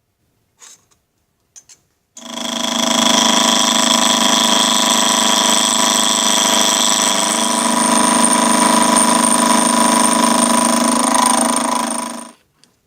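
A power tool starts after a few light clicks, runs steadily with a dense, unchanging whine for about ten seconds, then stops near the end.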